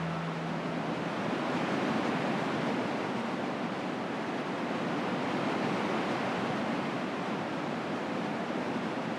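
Steady wash of ocean surf breaking on a beach, with the tail of a music track ending in the first second.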